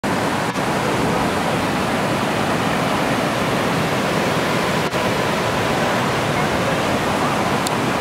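Creek cascade rushing over rock slabs into a pool: a steady, loud rush of water.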